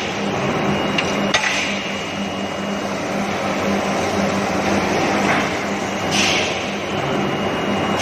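A steel bar induction heating furnace and its feed line running in a forge shop: a low pulsing hum with a thin high whine over it. Three short hisses stand out, the loudest about six seconds in.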